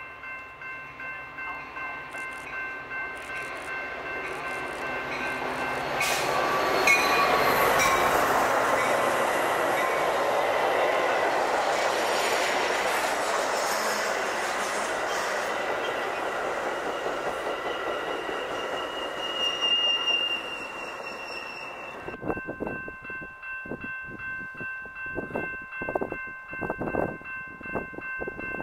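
Railroad crossing bells ringing steadily while a Metra commuter train of bilevel gallery cars approaches and passes close by, its wheels and cars loud for about fifteen seconds. After a sudden cut near the end, the crossing bells go on with scattered knocks.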